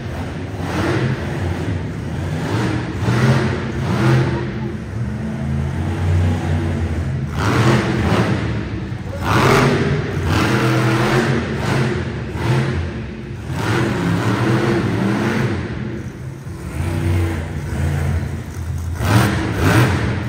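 Monster truck engine revving hard in repeated surges, its pitch climbing and dropping every few seconds.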